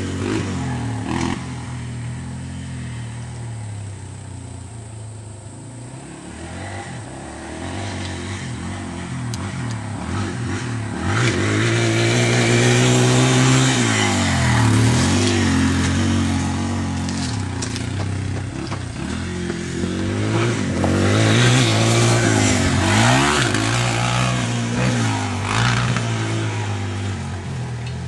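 Dirt bike engine revving and easing off with gear changes as it rides the track, its pitch dropping and climbing several times. It grows loud as the bike passes close about halfway through, with another surge near the end.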